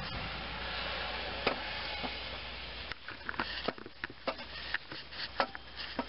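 Rustling, then from about halfway through a run of irregular light clicks and knocks as the unbolted starter motor is worked loose by a gloved hand from under a GM 2.4L engine.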